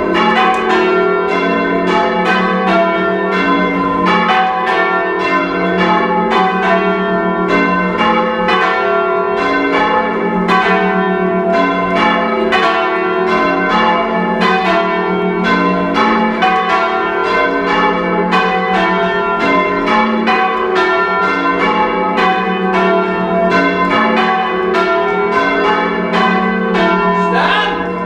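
Four heavy church bells, a ring of five rung without its treble, being rung full-circle by hand, heard loud from inside the ringing chamber. The strikes follow one another in a steady, unbroken rhythm, each bell's ring overlapping the next.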